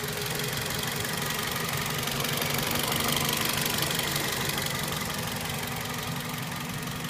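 2004 Toyota Celica GT's 1.8-litre four-cylinder engine running at idle with a rapid, steady ticking. The tick is unexplained, and the owner is asking what causes it. The sound grows a little louder for a couple of seconds in the middle.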